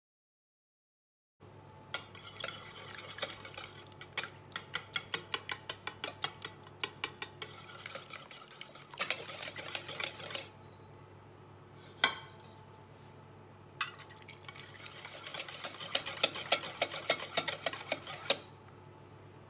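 Wire balloon whisk beating eggs in a stainless steel bowl, the wires clicking against the metal about five times a second. The beating comes in runs with short pauses and a few single knocks against the bowl.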